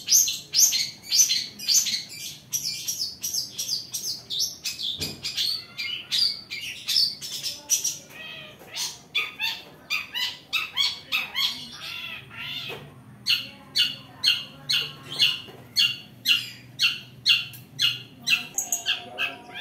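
Long-tailed shrike (cendet) calling from its cage: a fast, unbroken run of short, sharp chirps, several a second, turning into more varied warbling notes around the middle before the quick chirping returns.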